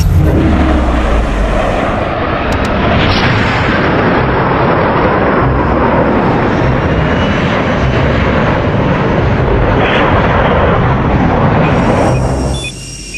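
Loud, steady jet engine roar of a fighter in flight, with two swelling whooshes, about three seconds in and again near ten seconds, dropping away just before the end.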